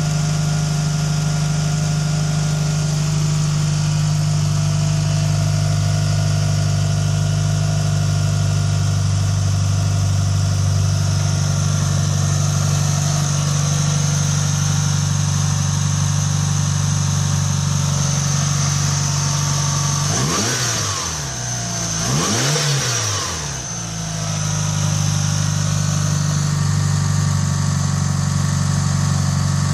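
Mitsubishi Lancer Evo's turbocharged 4G63 four-cylinder engine (from an Evo VIII MR) idling steadily after a cold start. About two-thirds of the way through it is blipped twice, its pitch rising and falling quickly each time.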